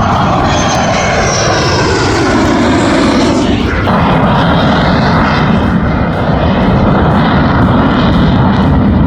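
Air Force Thunderbirds F-16 fighter jet flying past overhead, its loud roar falling in pitch over the first four seconds as it passes, then going on steadily.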